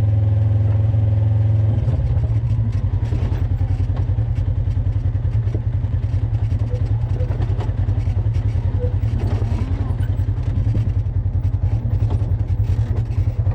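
An off-road vehicle's engine running. It holds a steady hum for about the first two seconds, then changes to a rapid, even pulsing beat.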